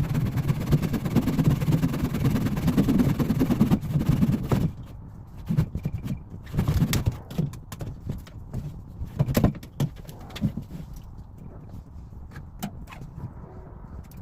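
A power saw running and cutting through a cottonwood stump root, stopping after about five seconds. Then scattered knocks and thuds.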